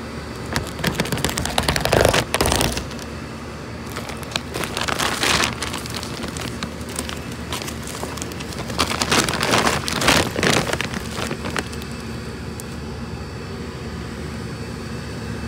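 Lumps of charcoal clattering and clinking against each other as a bag of charcoal is handled and rummaged, with the crinkle of the bag. The clatter comes in a few crackly spells: about two seconds in, around five seconds, and again from about nine to eleven seconds.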